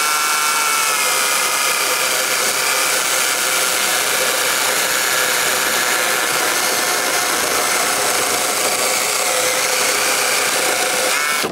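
Cordless brushless electric chainsaw cutting through a log, a steady motor whine with the chain ripping through the wood. It cuts off near the end as the cut is finished.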